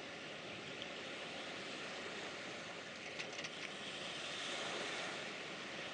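Steady riverside background noise: a hiss of wind and water with a faint steady hum under it, and a few faint clicks about three seconds in.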